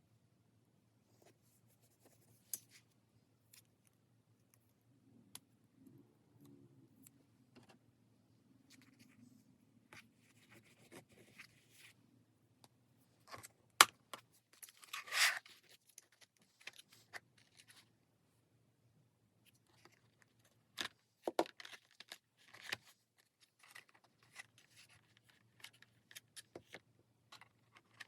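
Quiet desk work with stationery: scattered light clicks, taps and paper rustles. A sharp click comes about 14 seconds in, followed by a short rasp like paper tearing or a sticker peeling.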